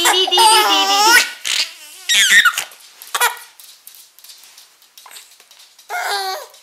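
A baby of about five months laughing and squealing in high-pitched bursts while being tickled: a long run of laughter in the first second or so, shorter bursts after, a quieter gap, and another squeal near the end.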